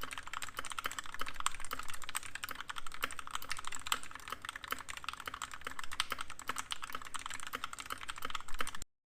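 Keyboard typing: a fast, continuous run of key clicks that stops suddenly shortly before the end.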